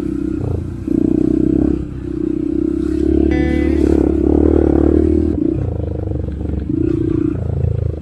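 Honda CRF150L dirt bike's single-cylinder four-stroke engine running under changing throttle while riding a trail, its drone swelling and easing several times. A short high-pitched tone sounds a little over three seconds in.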